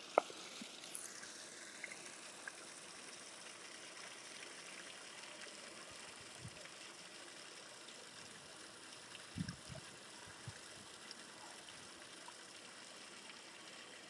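Small stream of water trickling and splashing steadily over stones beneath a fringe of ice. A few soft low thumps come about two-thirds of the way through.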